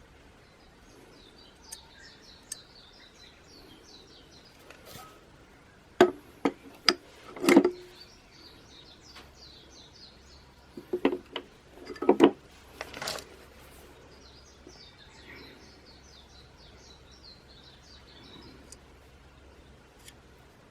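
A small bird twittering in repeated runs of quick high chirps, broken by two clusters of sharp knocks and clatter, the loudest sounds, about six and eleven seconds in.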